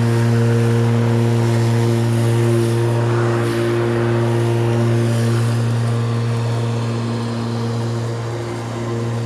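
Spear & Jackson 40V cordless rotary lawnmower running with a steady, constant-pitch hum as it cuts grass. It passes close by and then moves away, growing a little quieter toward the end.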